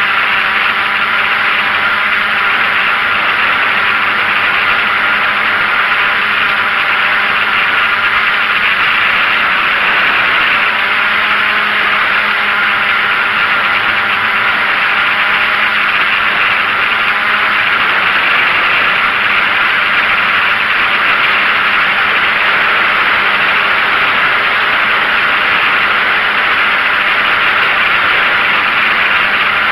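DJI F550 hexacopter's electric motors and propellers running steadily in flight, heard from a camera mounted on the frame: a steady hum under a loud hiss of rushing air, its pitch wavering slightly about halfway through.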